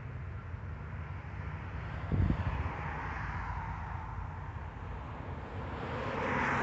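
Steady low engine rumble of heavy machinery working nearby, with one thump about two seconds in and a rush of noise building near the end.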